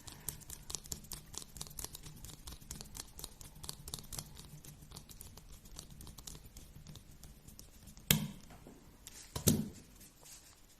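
Rapid fine clicking and ticking of a small plastic RC-car differential being worked by hand during reassembly, then two sharper knocks about eight and nine and a half seconds in.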